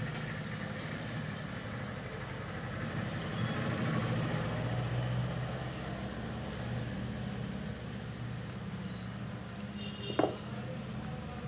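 Steady low engine-like rumble in the background. About ten seconds in there is one short, sharp clink as the steel spring thread clippers are picked up.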